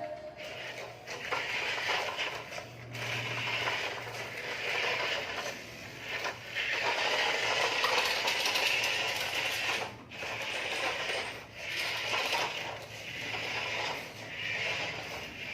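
Huina RC excavator's small electric motors and plastic gear trains running in short spells of a second or two, starting and stopping as its arm moves, with a mechanical ratcheting clatter.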